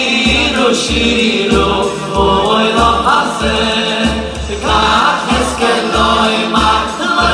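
A boys' choir and a male soloist singing a Hasidic song live through a sound system, over a steady low beat about twice a second.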